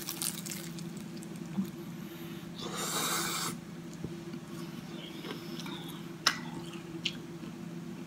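Close-up eating sounds of a fried egg roll: a crunchy bite into the crisp wrapper at the start, then quiet closed-mouth chewing with a soft, wet squish and a few small clicks later on, over a steady low hum.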